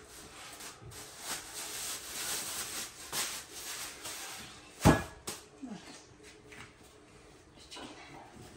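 Hand-kneading of khanum dough on a floured oilcloth-covered table: soft rubbing and pressing. One sharp, loud thump comes about five seconds in as the dough is pushed or slapped down, followed by a few lighter knocks.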